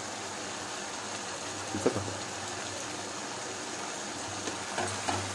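Steady hiss of chicken masala curry cooking in a pan on a gas stove, with a low hum underneath.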